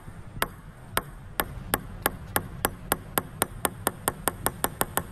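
Table tennis ball bouncing with sharp, even clicks that speed up steadily, from about two a second at the start to about five a second by the end.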